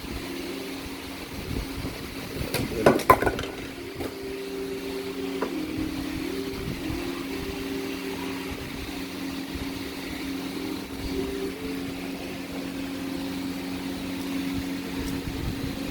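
A steady low mechanical hum runs throughout, with a wavering tone above it. About three seconds in there is a short cluster of clicks and rustles from the fog-light packaging being handled.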